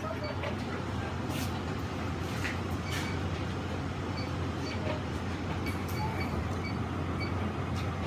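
Ceiling cassette air conditioner running with the diffuser fan spinning beneath it: a steady low hum and an even rush of air, with faint clicks now and then.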